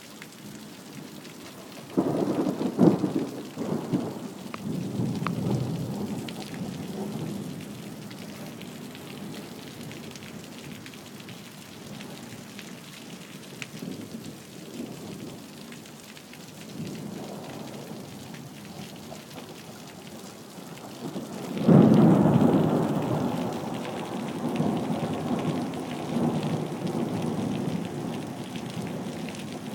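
Thunderstorm: rain falling steadily throughout, with two thunderclaps, one about two seconds in and one about two-thirds of the way through. Each starts suddenly with crackling and rolls on as a low rumble for several seconds.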